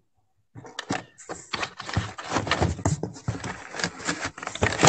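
Cardboard box and packing inserts being handled while metal detector parts are shifted inside: a busy run of rustles, scrapes and quick knocks, starting about half a second in.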